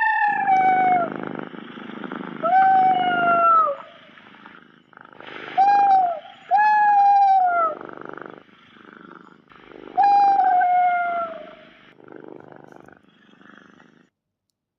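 Baby spinosaurus sound effect: five high calls, each falling in pitch, over a rough, noisy growl. It stops about a second before the end.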